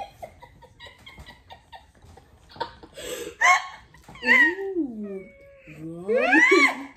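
Three drawn-out meow-like cries from about halfway in, each bending up and down in pitch, the last and loudest near the end.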